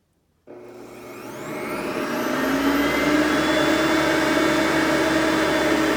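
Hoover Platinum Collection lightweight upright vacuum (UH30010) switched on. Its 5.5-amp direct-air motor soft-starts about half a second in, whining up in pitch and loudness over about two seconds, then runs steadily at high speed.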